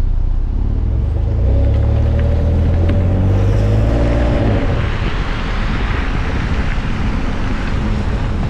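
2023 Ford F-150's 3.5-litre EcoBoost V6 driving past, its exhaust note climbing and then dropping sharply about four and a half seconds in, followed by a steady rush of tyre and road noise.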